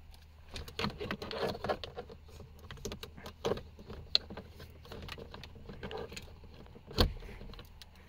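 Hands handling a power inverter's cable and plug in a car's centre console: scattered rustles and light clicks, with one sharp knock about seven seconds in.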